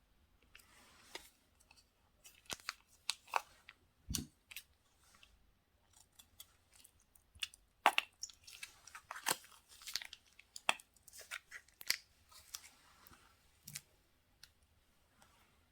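Slime being squeezed and poked by hand, giving an irregular run of sticky clicks, pops and crackles, with a dull thud about 4 seconds in.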